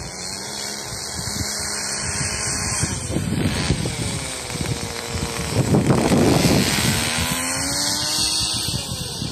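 Kyosho RC buggy's small nitro engine running as the buggy drives about. The revs drop about three seconds in and climb again near the end, and it is loudest around six seconds in.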